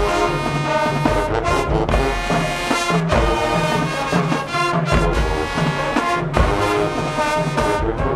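High school marching band playing: brass sections sounding full chords over heavy drum hits.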